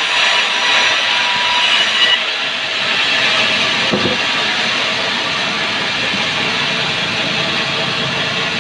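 Sawmill machinery running steadily while sengon wood is sawn, with a single knock about four seconds in.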